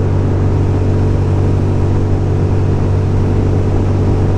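A 2006 Ducati Monster 620's air-cooled L-twin engine running at a steady cruising speed, its pitch holding level throughout.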